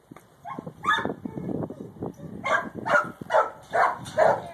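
A dog barking repeatedly, settling from about halfway into a steady run of about two barks a second.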